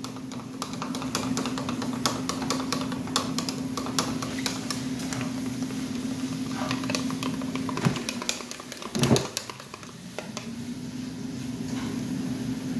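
Metal spoon stirring and scraping a thick dressing in a plastic tub: a quick, irregular run of small clicks and taps, over a steady low hum. The clicking stops after about eight seconds, and a short louder sound follows about a second later.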